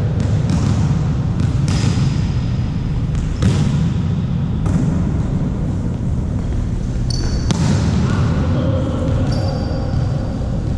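A volleyball being struck and bouncing on a gym court, with short high sneaker squeaks and steady low room noise in a large hall.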